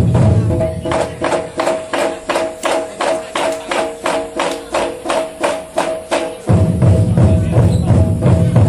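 Drum troupe playing large barrel drums with sticks: deep drum beats at first, then from about a second in a run of sharp clicking stick strikes at about three or four a second without the deep boom, and full deep drumming comes back in about six and a half seconds in. A steady held tone sounds beneath throughout.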